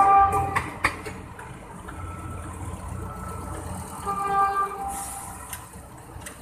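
Horn sounding in two short blasts, one at the start and one about four seconds in, over the low rumble and occasional rail clicks of an ex-JR 203 series electric multiple unit train rolling away along the track.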